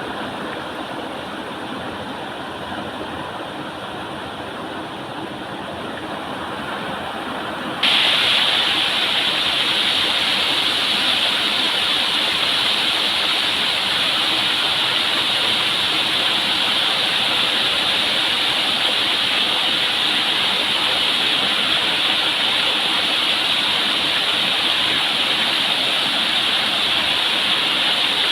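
Waterfall: a steady rush of falling water. It is duller and quieter for the first several seconds, then abruptly louder and brighter about eight seconds in.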